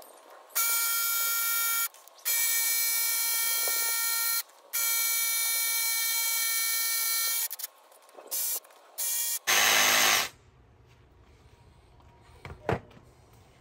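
DeWalt cordless jigsaw cutting a vinyl floor plank. The motor runs in three steady stretches of a few seconds each with brief stops between, then in a few short bursts, the last one louder, and it stops about ten seconds in. A single knock near the end.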